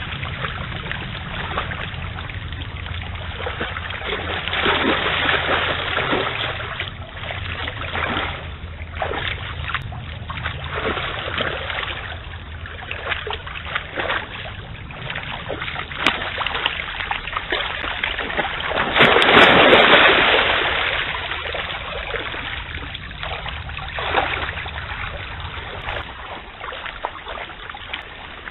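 Red deer hinds wading through a swollen stream, their legs splashing in the water over the steady sound of the running current, with one louder, longer splash about two-thirds of the way through.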